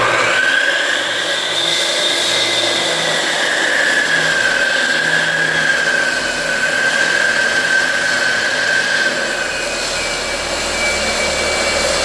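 Electric saw spinning up just at the start, then running with a loud, steady high whine that wavers a little in pitch as it cuts the door opening. Near the end the whine changes to a thinner, higher tone.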